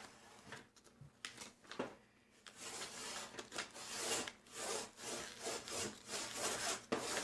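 Small scissors on a Boker multitool cutting through paper: a few clicks, then from a couple of seconds in a run of cutting strokes at about two a second.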